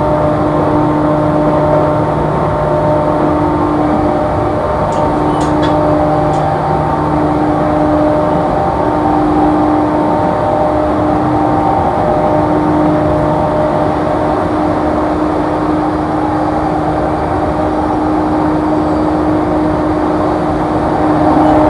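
JR East E235-series electric commuter train running at a steady speed, heard from inside the passenger car: a continuous wheel-on-rail rumble with a steady hum from the traction motors. A few faint clicks come about five to six seconds in.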